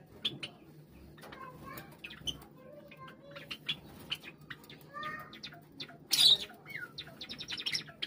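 A flock of white Java sparrows calling: short sharp chips and clicks with a few warbled notes, a brief loud flutter about six seconds in, and a quick run of clicks near the end.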